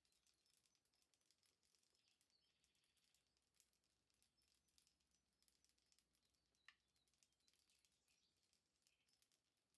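Near silence: faint room tone with scattered faint high ticks and a brief faint chirp about two-thirds of the way through.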